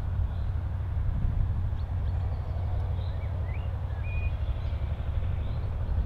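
A steady low rumble with a few short, high chirps and whistles of small birds scattered through it.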